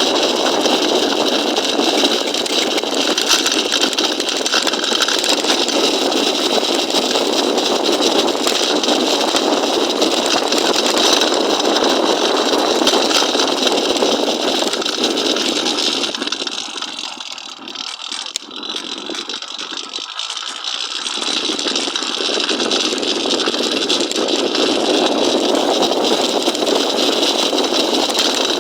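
Motorized bicycle's small engine running steadily. Its sound drops for a few seconds past the middle, then comes back to the same level.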